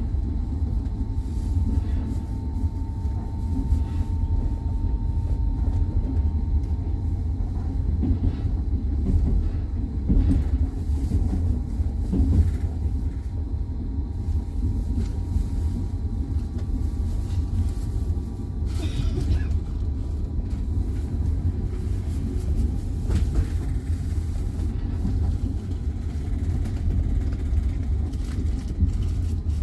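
Train wheels rumbling steadily on the rails as heard from aboard a moving train, with a few sharper knocks now and then.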